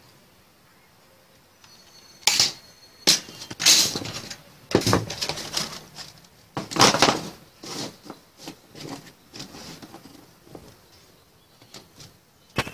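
Aviation snips cutting a thin sheet-metal strip into short pieces, with the cut pieces and the snips clattering onto a stone tabletop: a run of sharp metallic clacks and snips at uneven intervals over the first seven seconds or so, then lighter clicks of handling.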